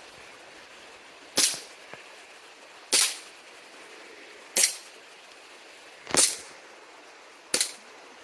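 Airsoft Glock gas blowback pistol, powered by green gas, firing five single shots about a second and a half apart, each a sharp crack with the slide cycling.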